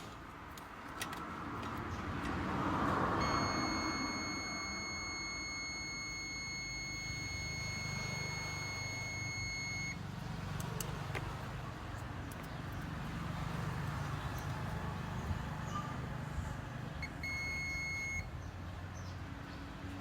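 Electronic beeper sounding a steady, high single-pitched beep held for about seven seconds, then a short beep of about a second near the end, over a low background hum.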